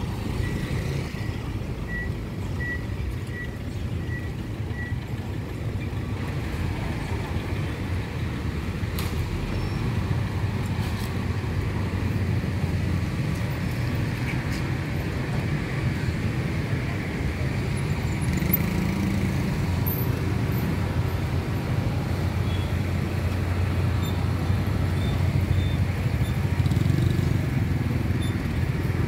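City street traffic: a steady low rumble of car and motorcycle engines passing close by. A short high beep repeats about twice a second during the first few seconds.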